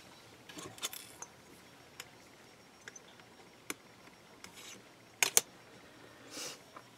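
Scattered light clicks and taps of a brass bracelet form and metal tools being handled on a craft work surface, with two sharp clicks close together about five seconds in and a short scraping rustle near the end.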